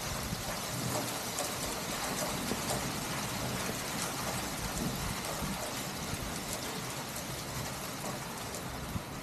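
Heavy rain pouring steadily, a dense even hiss with many individual drops ticking through it.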